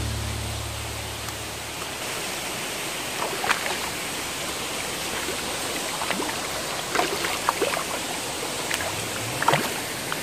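Fast river water rushing over rocks, with several sharp splashes in the second half as a hooked hampala thrashes at the surface.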